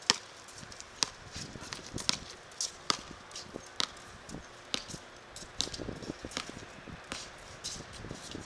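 A string of sharp knocks and taps, irregular, about one to two a second.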